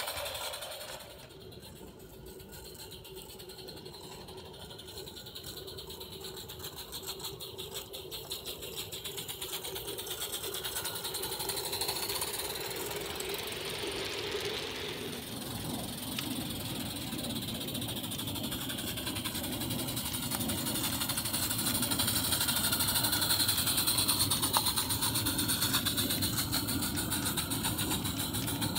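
Large-scale garden-railway model train running along outdoor track: a steady mechanical rattle of wheels and running gear. It dips about a second in, then grows louder toward the end.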